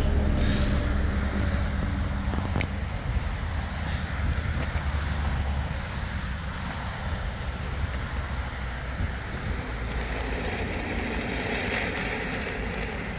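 Wind rumbling on the microphone while a firework fuse burns, with a single sharp click early on; about ten seconds in, the silver fountain firework starts spraying with a steady hiss.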